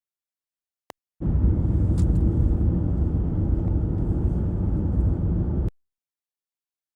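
Steady low road rumble of a moving car heard from inside the cabin, starting about a second in after a faint click and cutting off abruptly near the end.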